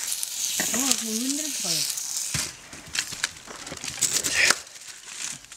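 Hot stones sizzling against meat packed inside a hollowed cabbage for horhog, a steady hiss that stops about halfway through. Scattered clicks and taps follow.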